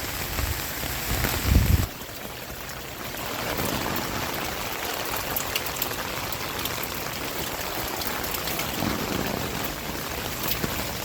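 Steady rain falling, a continuous hiss with scattered small drop ticks. A brief low rumble sounds about a second and a half in, then the level drops for a moment before the rain noise steadies again.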